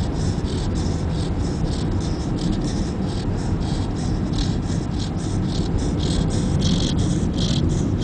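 A sleeping chow chow snoring, a quick raspy rasp repeating about three times a second, over the steady low rumble of a car on the road.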